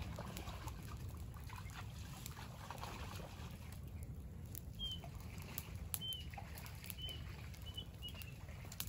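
Faint crackling of a small open fire of dry chili-plant stalks, with scattered sharp pops. A few short high chirps from a bird come about five to eight seconds in.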